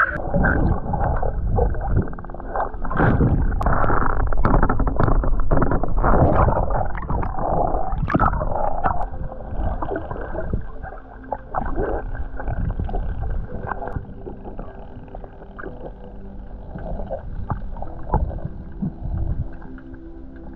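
Muffled underwater water noise from an action camera carried by a swimming spearfisher: irregular sloshing and gurgling, busier and louder for the first half, then a quieter, steadier wash.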